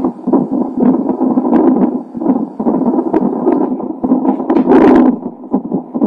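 An unborn baby's heartbeat heard through a fetal Doppler heart monitor: a fast, rhythmic whooshing beat, about two beats a second.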